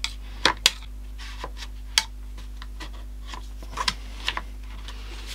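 Hands wiping and handling the plastic body of a Dyson V7 cordless vacuum with a cloth: soft rubbing broken by scattered sharp plastic clicks and taps, the sharpest of them in the first two seconds.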